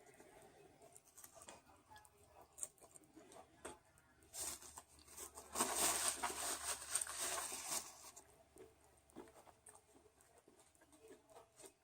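Close-up eating sounds: scattered small clicks and mouth noises, with a few seconds of paper wrapper rustling and tearing in the middle, the loudest part.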